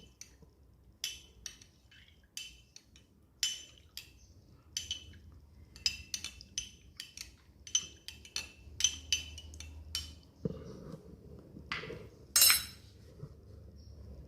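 A spoon clinking against a glass again and again while stirring a drink: irregular light strikes, each with a short ring, the loudest one near the end.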